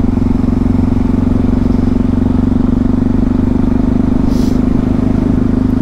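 Yamaha MT-03 660's single-cylinder engine running at a steady, unchanging pitch while the bike cruises at constant throttle. Its exhaust has the baffle (dB killer) fitted.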